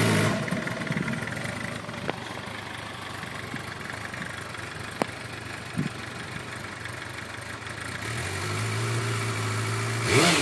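2008 Suzuki GSX-R 750's inline-four engine idling roughly. Its steady note drops away early on and the engine runs faint and uneven with a few clicks, then picks back up to a steady idle about eight seconds in, with a brief louder surge near the end. This is the hard-starting, rough idle the bike shows after sitting hot.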